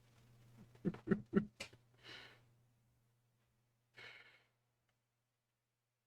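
A person chuckling softly: a few quick voiced laugh pulses about a second in, then breathy exhalations, over a low electrical hum.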